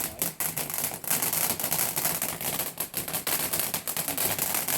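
Firework crackling: a dense, rapid run of sharp cracks, like a string of firecrackers.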